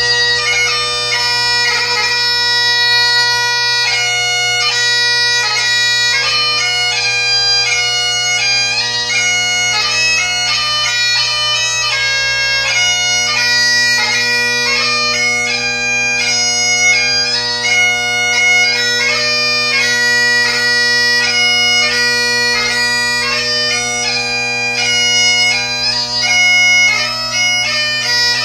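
Great Highland bagpipe played solo: the drones hold a steady hum while the chanter plays a fast melody of quickly changing notes with gracenote ornaments.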